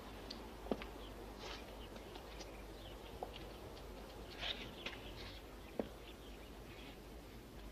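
Quiet outdoor ambience of faint bird chirping, with a few sharp knocks spaced a couple of seconds apart.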